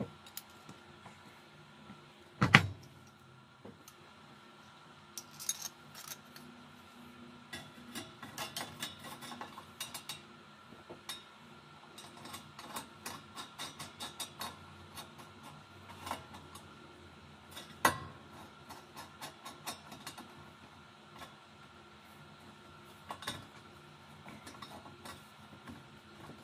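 Copper pipe and a steel crosscut saw blade clinking and knocking together as the pipe is worked on as a handle: one sharp metal knock about two and a half seconds in, then a long run of quick light clinks and taps, and another knock near the end of that run.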